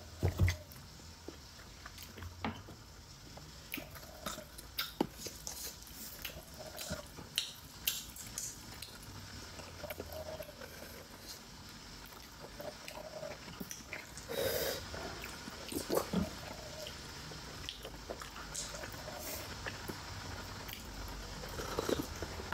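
Close-miked mouth sounds of eating steamed momo dumplings dipped in sauce: chewing with scattered wet clicks and lip smacks. Near the end, a slurp as the sauce is sipped from the bowl.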